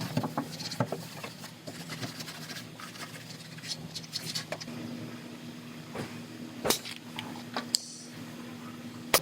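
Scattered light clicks, taps and knocks of tools and metal being handled, with a few sharper knocks in the second half, over a faint steady hum.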